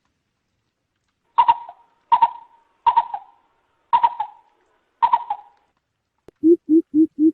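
Coucal calling: five sharp, higher calls about a second apart, then from about 6.4 s a fast, even run of deep hoots, about three and a half a second, rising slightly in pitch. This is the kind of call played back as a lure in bird surveys.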